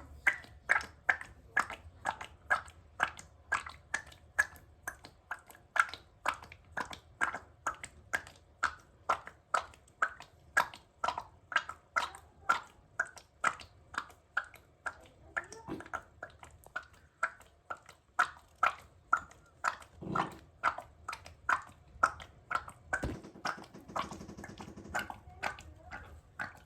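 Strange short sounds from a fat cat's belly as it is touched, coming in a steady rhythm of about two a second; the owner says they are not a sign of illness.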